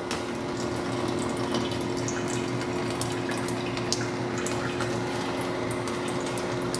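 Flood coolant pump running with a steady hum while its stream of water-based coolant pours from a flexible nozzle and splashes onto the lathe's carriage.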